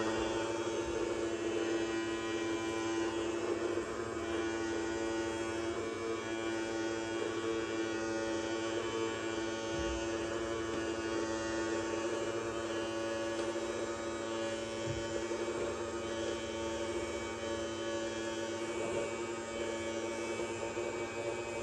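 Toy robot vacuum cleaner's small electric motor running with a steady, even hum. There are two soft knocks partway through.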